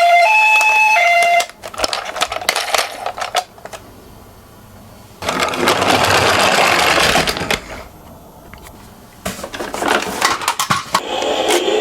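A toy ambulance's electronic two-tone "pi-po" siren, which stops about a second and a half in, followed by clattering, clicks and a rolling rattle from small toy cars running down a slope.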